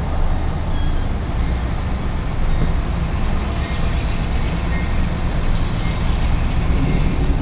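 Steady low engine rumble, heard from inside a car.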